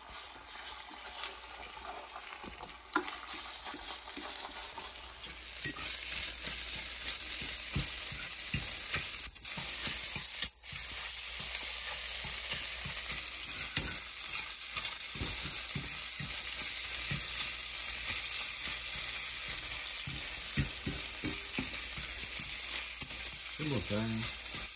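Eggs sizzling in a hot frying pan while a spatula stirs and scrapes them into scrambled eggs, with scattered clicks and scrapes of the spatula on the pan. The sizzling gets much louder about five seconds in.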